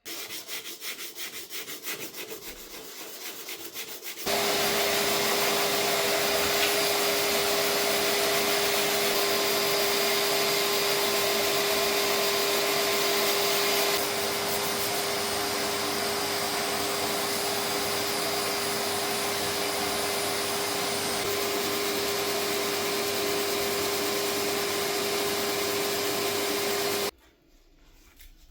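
Handheld Dremel rotary tool running steadily with a constant whine, sanding and roughening car body panel edges for filler. It follows about four seconds of quick, rhythmic rasping rubbing.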